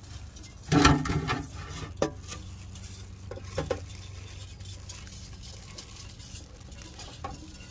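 Handling noises of a galvanized metal bucket: a loud knock and scrape about a second in, a sharp tap about two seconds in and a smaller knock later, followed by faint rustling of a plastic bag.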